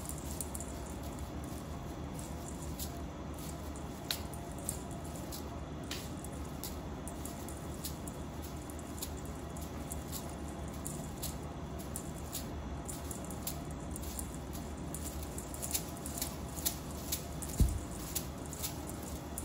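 Kittens playing with a tinsel wand toy on a tile floor: a scatter of light clicks and crinkles over a steady low hum, with one dull thump near the end.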